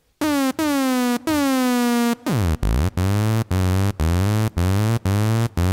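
Software synthesizer lead patch in Native Instruments Massive, a square/saw wave with an envelope modulating its pitch, played as a series of notes. The first few notes each swoop down in pitch as they start, then hold. A long falling pitch sweep comes a little after two seconds in, followed by lower notes repeated about twice a second.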